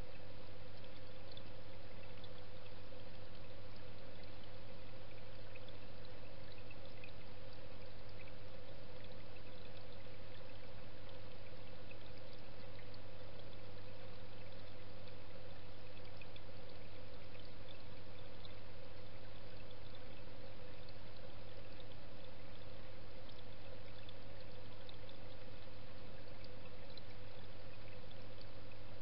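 Steady rush of moving pond water with a constant low hum and a steady higher drone, heard underwater as from a running pond pump and its pipework, with faint scattered ticks.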